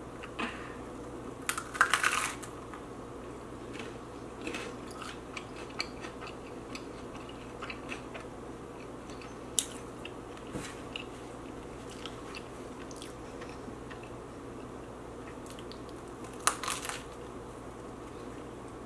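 Close-up eating sounds: biting into and chewing crunchy hot Cheetos with a cream-cheese bagel. There are a few louder crunching bites about two seconds in and again near the end, and light chewing clicks in between.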